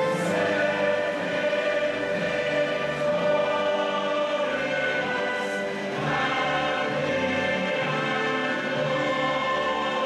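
Choral music with orchestral backing: slow, held chords sung by a choir, changing every second or so.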